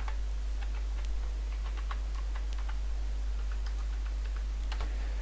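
Typing on a computer keyboard: about a dozen separate key clicks at an irregular pace, with a sharper keystroke near the end. A steady low hum runs underneath.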